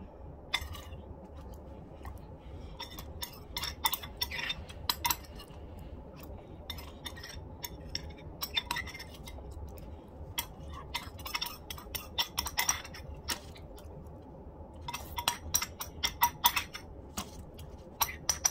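Metal spoon clinking against a ceramic bowl as porridge is spooned out, in irregular clusters of light clinks.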